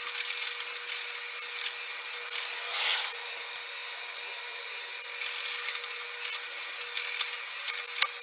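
Drill press motor running steadily with a steady hum-like tone while the bit bores a 9/32-inch hole through stacked wooden blocks. The cutting swells louder about three seconds in. A few sharp clicks come near the end.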